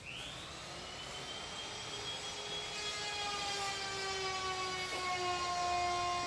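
A machine whine made of several pitched tones that comes in at the start, drifts slowly lower in pitch and grows gradually louder.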